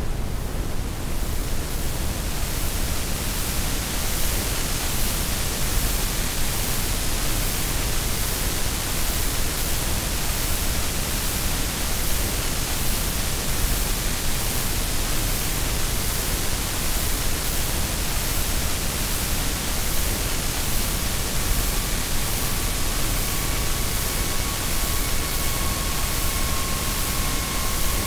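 Steady, loud hiss of electronic noise like static, its highs filling in over the first second or two. About twenty seconds in, a faint steady high tone with an overtone comes in and holds.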